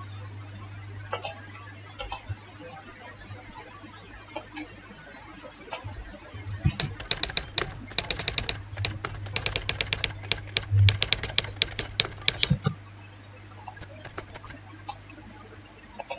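Computer keyboard typing sound effect playing as a rapid run of key clicks from about six and a half seconds in to about twelve and a half seconds in. A few scattered mouse clicks come before it, over a steady low hum.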